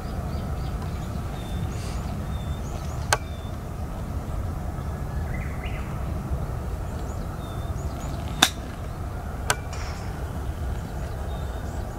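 Golf ball struck with a 58° wedge on a 47-yard pitch: one sharp click about eight seconds in, the loudest sound here. Two fainter clicks come about five seconds before it and a second after it, over a steady low rumble.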